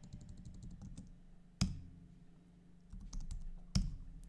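Typing on a computer keyboard: a fast run of keystrokes, then a single harder key press about a second and a half in, a few more keys around three seconds and another hard press near the end. The keystrokes type an ssh command and a "yes" reply, each sent with a press of Enter.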